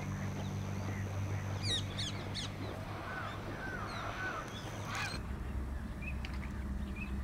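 Birds calling: a quick run of high chirps about two seconds in, then a few short arched calls, over a steady low hum.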